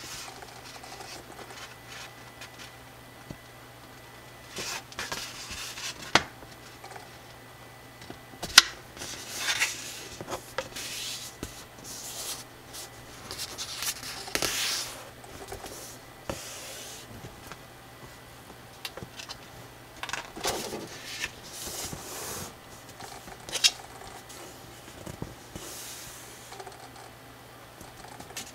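Sheet of slightly thick coloured drawing paper rustling and swishing in short strokes as hands fold it and run fingers along the creases, with one sharp click about a third of the way in.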